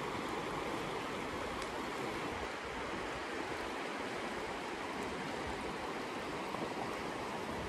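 Shallow river water running fast over a pebble bed: a steady rushing and rippling of flowing water.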